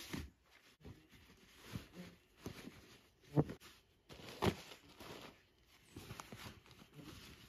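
Rustling and knocking of camping gear being packed into a backpack: fabric and nylon sacks rubbing and crinkling as items are pushed in, with two louder thumps about three and a half and four and a half seconds in.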